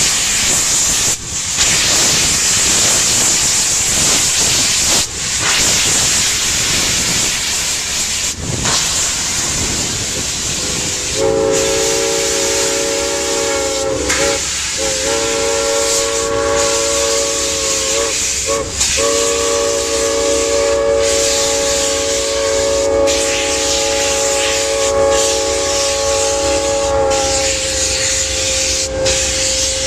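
Steam locomotive letting off a loud steady hiss of steam. About a third of the way in, its whistle starts blowing a chord of several tones at once. The whistle is held for most of the rest, broken off briefly twice.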